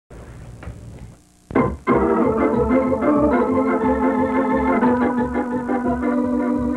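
Organ theme music playing sustained chords, coming in sharply about a second and a half in after a brief quieter stretch.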